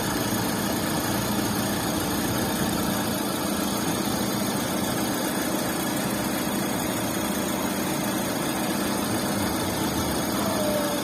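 Car engine idling steadily. The engine has sludge and congealed oil inside, which the mechanic says changes its running sound.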